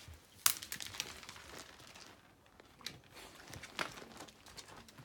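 Scattered light clicks and crinkly rustling: a dog's claws ticking on a wooden floor as it walks, with one sharper click about half a second in.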